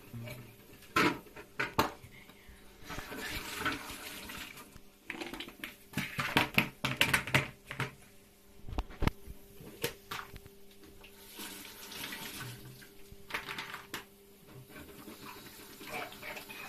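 Kitchen mixer tap running in short spells into a sink as dishes are rinsed by hand, with sharp clinks and knocks of dishes against the sink in between.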